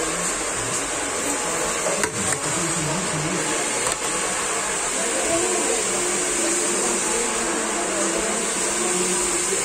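Steady rush of water from a salon wash basin's handheld sprayer running as hair is scrubbed and rinsed in the sink.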